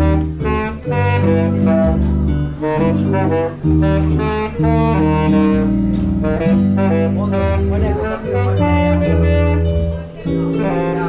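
A saxophone playing a melody of held notes over an accompaniment with a steady bass line.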